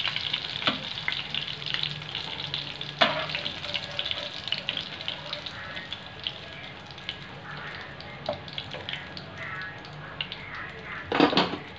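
Coated prawns deep-frying in a pan of hot oil, a steady sizzle full of small crackles, while a slotted metal skimmer works among them. A sharp tap comes about three seconds in, and a louder brief clatter near the end.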